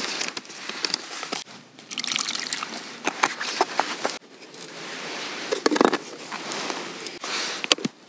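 Water poured into a Barocook self-heating lunchbox onto its flameless heating pad to start it, with plastic container handling and several sharp clicks, the loudest near the end.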